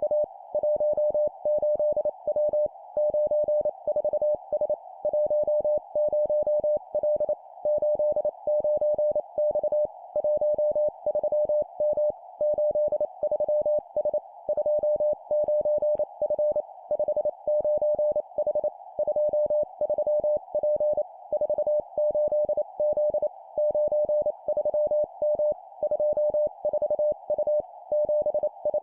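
Morse code (CW) sent at 25 words per minute as a single steady beep keyed on and off in rapid dots and dashes. It is sent in three-character groups of two numbers and a letter, with short regular pauses between the groups.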